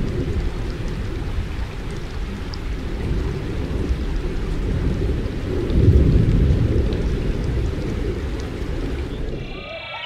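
Thunderstorm: steady rain falling with a low, rolling rumble of thunder that swells loudest about six seconds in.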